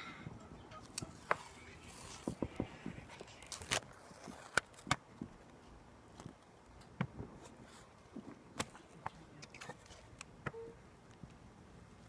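Irregular sharp clicks and knocks, a dozen or more scattered over a low background hiss, with the loudest a little before and after the middle.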